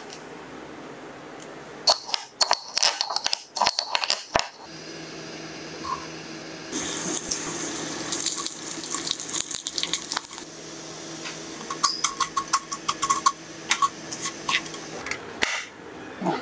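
Raw rice grains clicking and rattling against a dish, then rice frying in oil in a pan: a steady sizzle under a low hum, with spatula strokes and quick runs of grain clicks as the rice is stirred toward golden.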